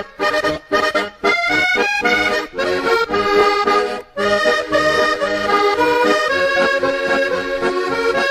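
Accordion-led music playing a lively melody, with a few short breaks in the first seconds and one about four seconds in.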